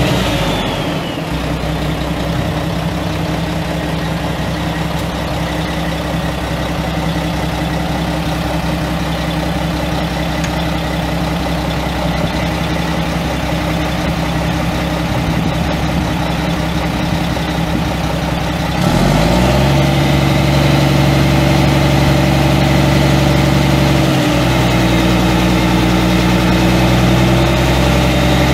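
Mack E7 12-litre inline-six turbo diesel running at idle, its pitch dropping back just at the start. About two-thirds of the way through it gets suddenly louder, rises briefly in pitch, then holds steady again.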